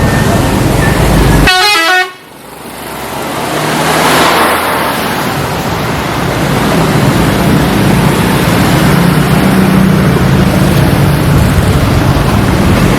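Telolet bus horn, a set of tuned multi-tone air horns, playing a fast run of stepping notes about a second and a half in, cut off abruptly. Then loud bus engine and street noise swells up and runs steadily.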